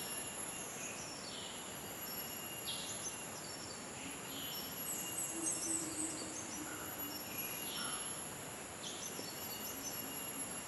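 Tropical rainforest morning chorus: a steady high-pitched drone of insects with many short bird calls that fall quickly in pitch, repeated every second or so and crowding together about halfway through.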